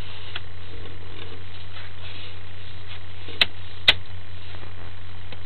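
Steady low electrical hum with faint hiss from a sewer inspection camera's recording setup, broken by two sharp clicks about three and a half and four seconds in.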